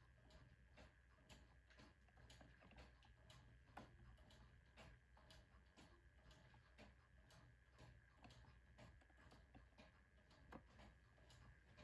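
Wooden geared clock mechanism ticking and clicking faintly, several clicks a second at uneven spacing, over a steady faint hum.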